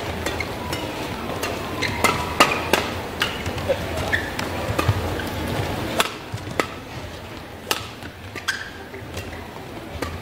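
Badminton doubles rally: sharp racket strikes on the shuttlecock, about one or two a second, with short squeaks of shoes on the court floor.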